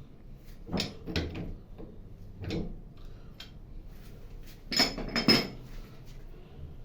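Metal tools and parts knocking and clinking as they are handled, a handful of separate knocks with the loudest pair about five seconds in ringing brightly.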